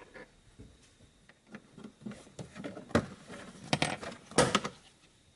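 A plastic boot side trim panel being pried off, its retaining clips letting go with sharp plastic snaps and knocks, the loudest in the second half.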